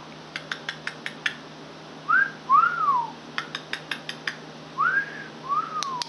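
Green-cheeked conure whistling a two-note whistle, a rising note then a falling one, twice. Each whistle is preceded by a run of about six quick, sharp clicks in about a second.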